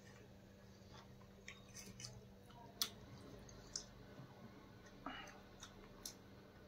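Quiet eating sounds: faint chewing of noodles and a few short clicks and scrapes of forks against ceramic plates, over a faint steady hum.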